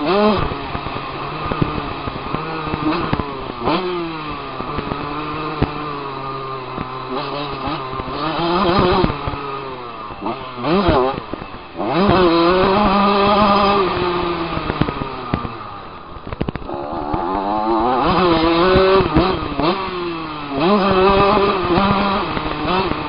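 Motocross dirt bike engine ridden hard, revving up and dropping back in pitch again and again as it accelerates and eases off.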